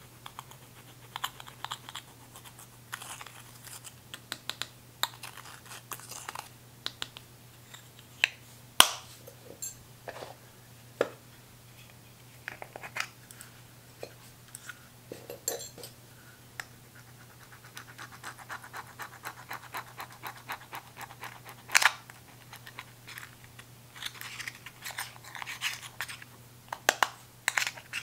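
Pressed eyeshadow being scraped and pried out of its pans with a metal tool: irregular scratching and crumbling of the powder, with clicks and taps of the tool against the metal and plastic pans. Two sharp, louder clicks stand out, about nine seconds in and again about twenty-two seconds in.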